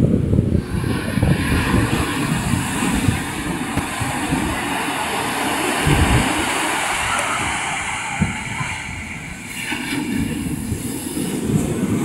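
Heavy sea surf breaking and rushing up the beach: a steady, deep roar of rough waves.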